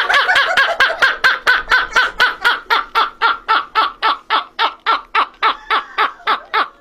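Shrill, rhythmic laughing: a long run of short high-pitched "ha" pulses, about four or five a second, slowing a little toward the end.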